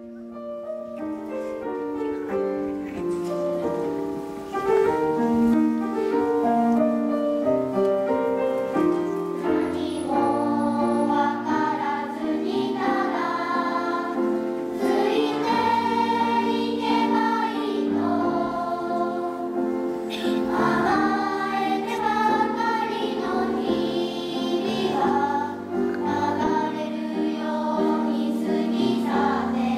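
Children's choir singing a choral song in several voice parts, starting softly and growing fuller about four seconds in.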